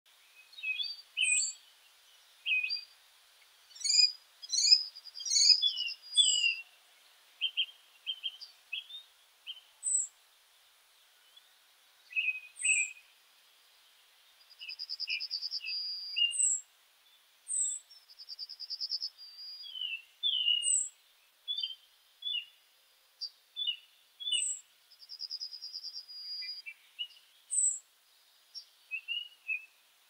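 Several songbirds singing in the morning, with overlapping chirps and short whistled phrases. A brief high downslurred note comes every few seconds, and a rapid trill about a second long repeats three times in the second half.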